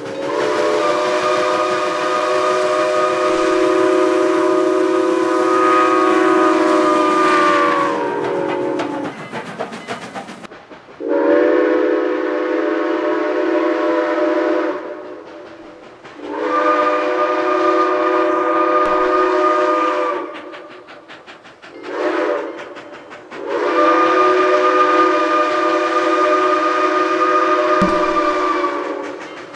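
Southern Railway No. 4501's six-chime Central of Georgia steam whistle blowing a chord: a long blast that sags in pitch as it closes, then two long blasts, a short one and a long one, the grade-crossing signal. Steam hisses between the blasts.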